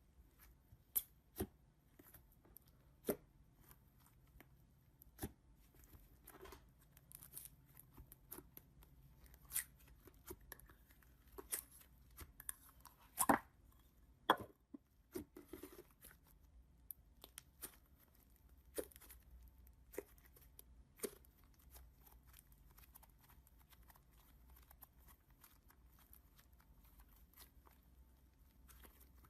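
Slime worked by hand: irregular sharp pops and clicks, the loudest about halfway through, with soft crackling between them.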